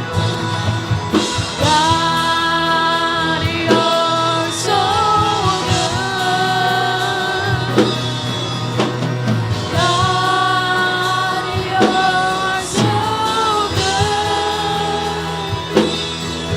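Worship music: a band playing under a sung melody with long, held notes.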